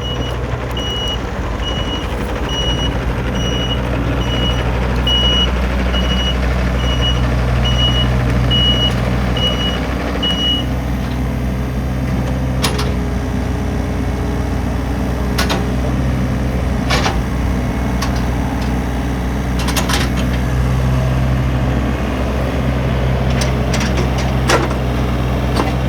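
Komatsu PC35MR-3 mini excavator's diesel engine running steadily, with its travel alarm beeping about twice a second for the first ten seconds, then stopping. Several sharp clanks and knocks from the machine follow in the second half.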